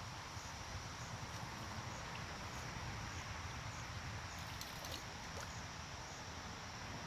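Night insects, crickets, chirping steadily in an even, repeating pulse, over a low steady rumble. A few faint clicks come about two-thirds of the way through.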